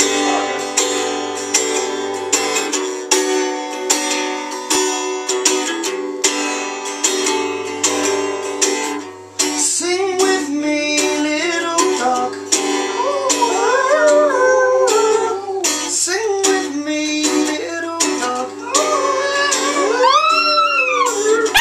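Acoustic guitar strummed in a steady rhythm, with a man singing from about halfway through. Near the end, high howls rise and fall over the music as the small dog joins in.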